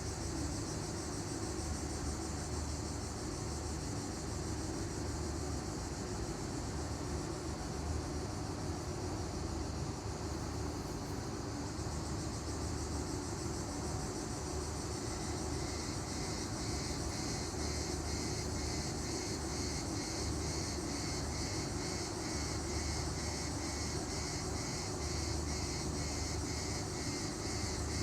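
Cicadas singing: a continuous high buzzing that, about halfway through, turns into a rhythmic pulsing song, over a steady low rumble.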